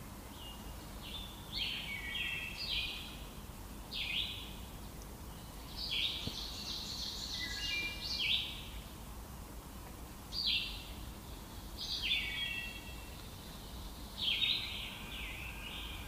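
Woodland songbirds singing short, high phrases of chirped notes, repeated every second or two, with a longer, fuller phrase about six to eight seconds in. A low steady background hiss runs underneath.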